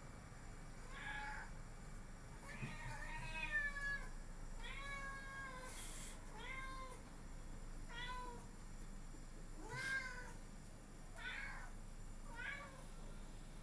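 Domestic cat meowing over and over at a gecko out of reach, about eight short calls, each rising and falling in pitch, the second one longer and drawn out.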